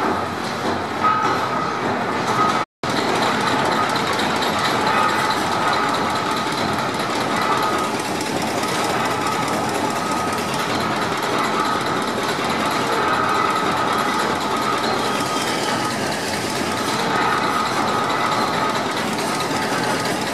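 Vintage stationary engine and the belt-driven geared plunger pump it powers, running together with a steady mechanical clatter. The sound cuts out for an instant about three seconds in.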